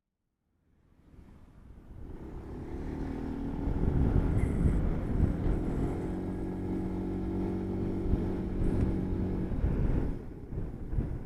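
Motor scooter running at a steady speed, a steady engine hum mixed with wind and road noise. It fades in from silence over the first few seconds and eases off a little near the end.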